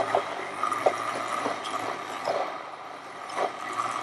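A few light, irregular knocks and clicks over a steady background hum. The blender motor is not running.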